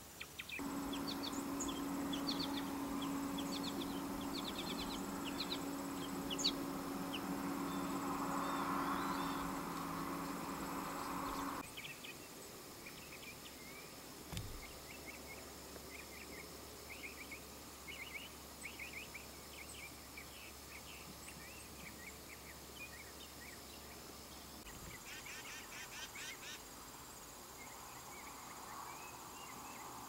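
Small backyard birds chirping over and over, short high calls scattered all through. For about the first eleven seconds a steady low mechanical hum runs underneath and then cuts off suddenly.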